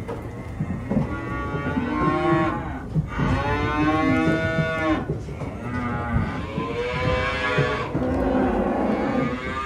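Holstein cattle mooing: several long calls one after another, some overlapping, over a steady low rumble.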